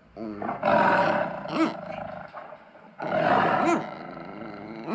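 Two loud, harsh roars from a recording of a tiger, each about a second long, with a small dog's low grumbling in between and near the end.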